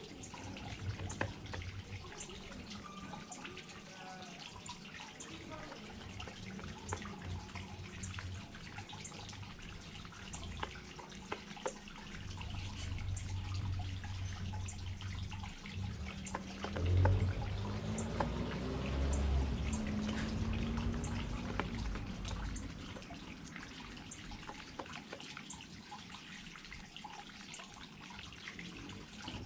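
Water from a small garden waterfall trickling and dripping steadily, with many small splashes. A low rumble swells for several seconds in the middle and fades again.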